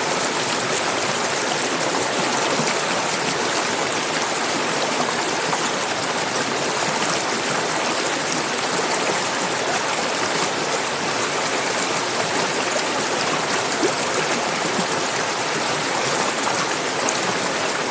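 Clear mountain river flowing over rocks, a steady rushing and babbling of water.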